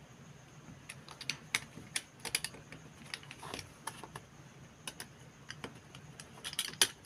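Utility knife blade cutting a slot through a plastic bottle cap, making irregular sharp clicks as the blade bites and the plastic gives.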